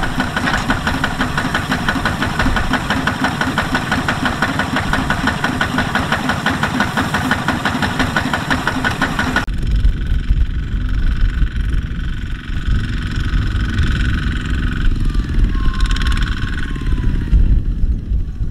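Single-cylinder Kubota ZT155 diesel engine of a two-wheel walking tractor running with a fast, even clatter. About halfway through, the sound changes suddenly to a lower rumble with a faint steady whine, as a walking tractor pulls a trailer loaded with rice sacks.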